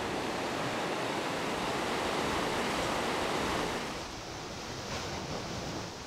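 Sea surf breaking and washing in, a steady rush that drops somewhat about four seconds in.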